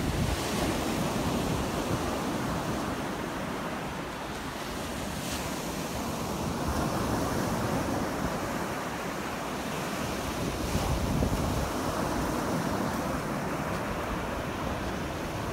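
Surf breaking and washing up the shore in a steady rushing wash that swells and eases, with wind buffeting the microphone.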